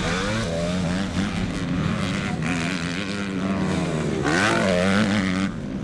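Motocross dirt bike engines revving hard as riders take a jump, the pitch rising and falling with the throttle, with a sharper surge of revs about four seconds in.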